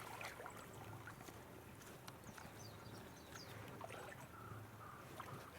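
Faint outdoor ambience: scattered short, high bird chirps over a low steady hum.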